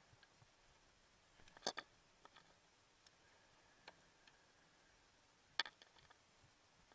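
Near silence broken by a few irregular sharp clicks and taps of fishing tackle being handled: rod, baitcasting reel and lure. The two loudest come just under two seconds in and about five and a half seconds in.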